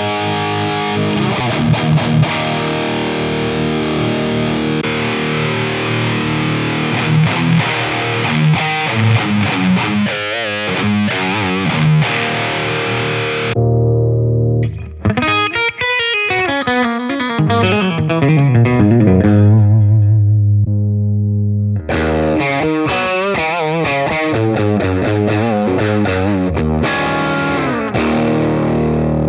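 Electric guitar played through an IK Multimedia TONEX One amp-modelling pedal, with distorted amp tones. The tone changes abruptly about halfway through to a thinner, darker sound, then about eight seconds later to another distorted amp tone, as different amp models are switched in.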